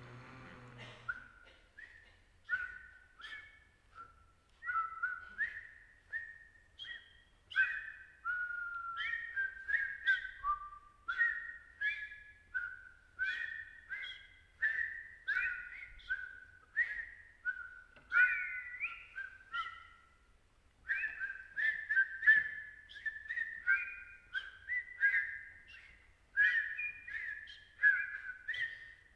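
Several performers whistling a dense stream of short, overlapping high notes that jump and slide in pitch, many starting with a sharp click. There is a brief break about two-thirds of the way through.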